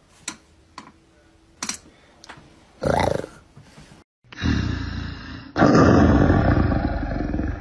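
Recorded big-cat roar sound effect: a low rumbling growl that swells into a loud, sustained roar about two-thirds of the way through. Before it come a few faint clicks and one short breathy burst.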